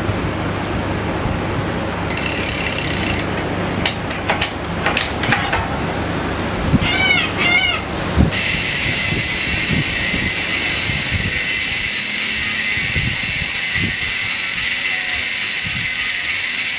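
Mountain bike rear freehub buzzing as the back wheel spins and the pawls ratchet, starting suddenly about eight seconds in and running steadily until it stops abruptly. Before it come a few clicks and rattles from handling the bike.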